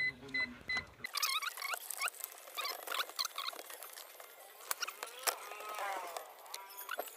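Plastic squeaking and clicking as a 10-inch Android head unit, still in its protective film, is pushed and fitted into the plastic dashboard fascia: many short clicks mixed with brief squeaks.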